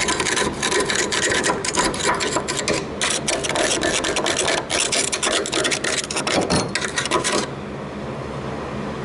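Rapid, rough scraping on rusty sheet metal, many quick strokes with a short break about three seconds in, stopping about seven and a half seconds in.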